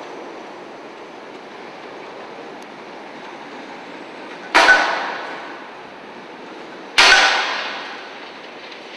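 Suburban diesel multiple unit running slowly through the station junction, a steady rumble, with two loud metallic bangs about two and a half seconds apart, each ringing briefly and fading.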